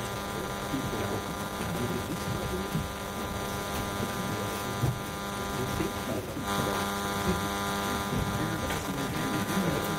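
Steady electrical buzz with many evenly spaced overtones, over a low murmur of audience chatter in a lecture hall; the buzz dips briefly about six seconds in.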